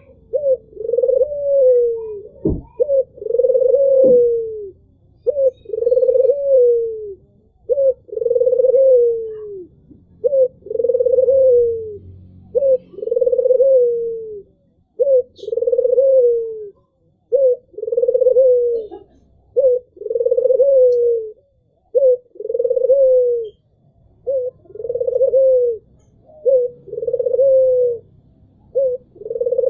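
Albino Barbary dove (puter) cooing over and over. Each phrase is a short note followed by a longer coo that falls at the end, repeating about every two seconds.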